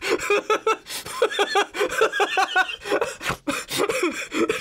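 A man laughing hard in rapid, repeated bursts.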